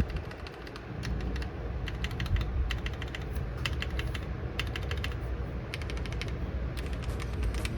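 Mechanical keyboard keys with stock linear red switches clacking in quick runs of keypresses, separated by short pauses, on an acrylic-plate gasket-mount board.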